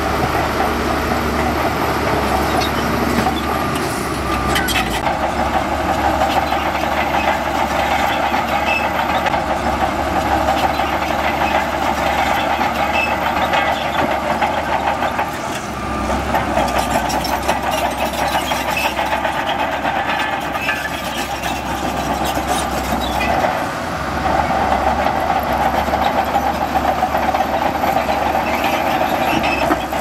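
Shantui DH17C2 bulldozer's diesel engine running steadily under load as it works sand, with scattered clanks from the machine; the engine note drops briefly about halfway through and again later.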